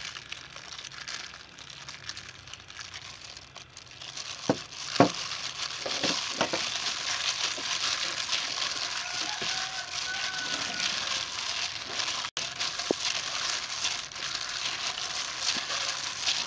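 Plastic-gloved hand squishing and stirring a liquid marinade with garlic and herbs in a stainless steel bowl: wet squelching and plastic crinkling. It starts about four and a half seconds in after two sharp knocks, then goes on steadily.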